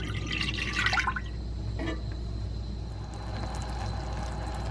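Liquid poured and splashing into a saucepan of teriyaki sauce for about the first second, followed by a single light knock, over a steady low hum.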